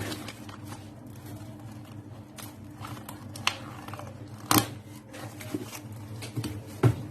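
Plastic sheet rustling and crinkling as it is pressed over a jar of salted lemons, with small clicks and two sharp knocks about four and a half and seven seconds in. A low steady hum runs underneath.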